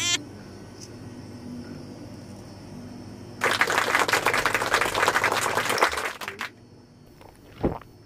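African grey parrot grooming itself: from about three and a half seconds in, some three seconds of dense, scratchy rustling and crackling as its beak works at its feathers and toes. The tail of a short whistle from the parrot sounds right at the start.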